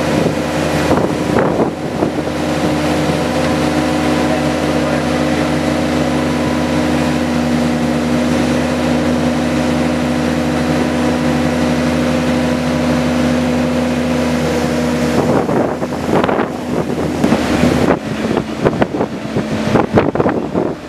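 A heavy vehicle's engine running steadily at a constant speed. About fifteen seconds in, the steady note drops away into irregular knocks and rumbling, with wind buffeting the microphone.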